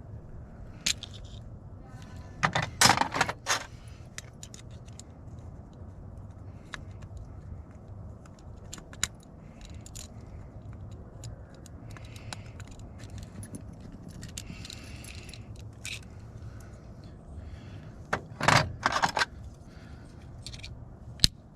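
Small metal lock parts clicking, scraping and clinking as a lever handle lock is put back together and its retaining clip worked into place, with louder bursts of rattling about three seconds in and again near the end.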